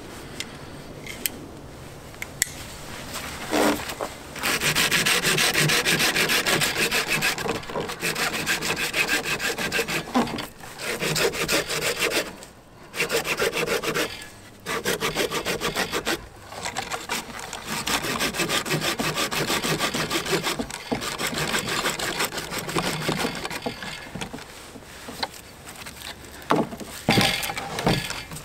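Hand-held camp saw cutting through a dead branch: a few seconds of handling, then steady back-and-forth rasping strokes through the wood with a few short pauses, the strokes lighter near the end.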